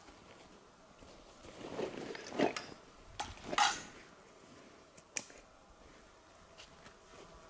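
Handling noises: a few short scrapes and rustles, the loudest about three and a half seconds in, then a single sharp click about five seconds in.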